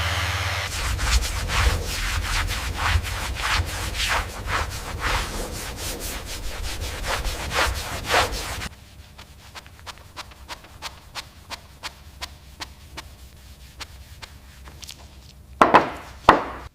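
Rhythmic sanding strokes, about two a second, over a low rumble. About halfway through the sound drops abruptly to fainter, quicker scraping, and two sharp knocks come near the end.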